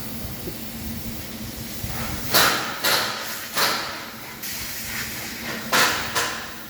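A 100-watt CNC laser cutter working on PVC pipe on its rotary attachment: a steady low hum with five short hissing bursts, each starting suddenly and fading within about half a second.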